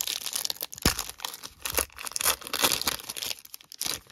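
Foil wrapper of a baseball card pack being torn open and crinkled by hand, an irregular crackling run of tearing and rustling, with one dull knock about a second in.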